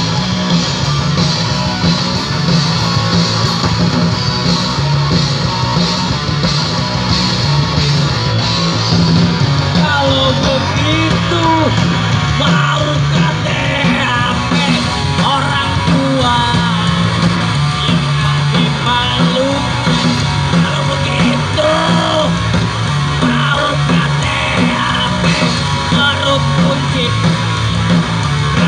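A live grunge band playing loud, distorted guitars with bass and drums. From about ten seconds in, a wavering lead melody rises above the band.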